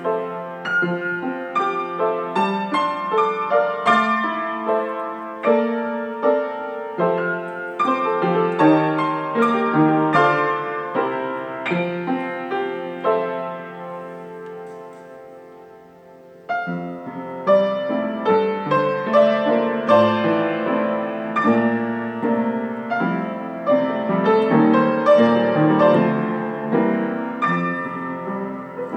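Piano music, notes struck and left to ring. The playing fades down about halfway through, then a fuller passage starts.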